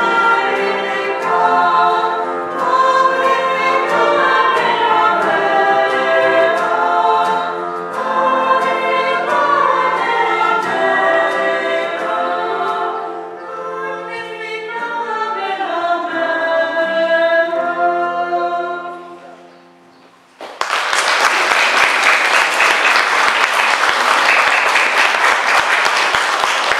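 Small choir singing a cappella in a church; the song dies away about twenty seconds in. After a moment's hush the audience breaks into steady applause.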